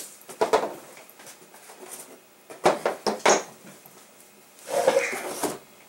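Steel parts of a field-stripped SKS rifle being handled and set down on a wooden board: a few sharp clinks and knocks, then a longer clatter near the end.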